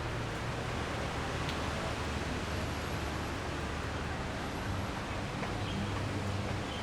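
Steady rain falling, an even hiss with a low hum beneath and a few faint ticks.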